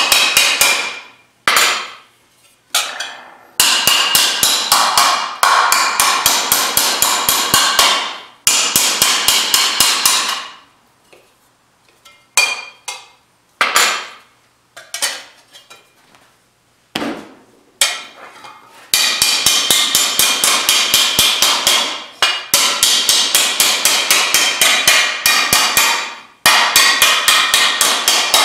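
Hand hammer striking a 16-gauge cold-rolled steel fender panel over a shot bag, roughing in the fender shape: fast runs of sharp metallic blows, several a second. About ten seconds in, the hammering stops for several seconds, with only a few scattered single strikes, then resumes in steady runs.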